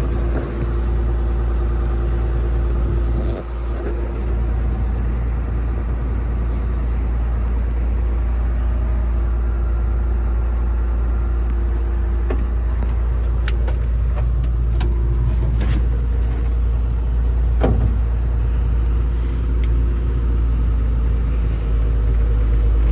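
Caterpillar 320CL excavator's six-cylinder diesel engine running steadily at idle, heard from inside the cab as a deep, even rumble. A few light clicks in the second half.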